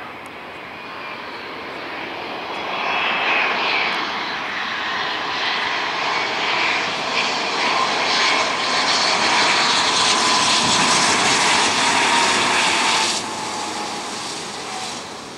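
Dassault Falcon 7X business jet on landing approach, its three turbofan engines' roar and whine building as it comes closer. The whine slides slightly down in pitch as it passes, and the sound drops off suddenly near the end.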